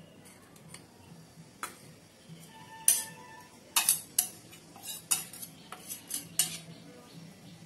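Steel spoon scraping ground spices out of a small steel bowl and clinking against it and the rim of a steel mixing bowl. A series of sharp metallic clinks, the loudest about three seconds in, some with a brief ring.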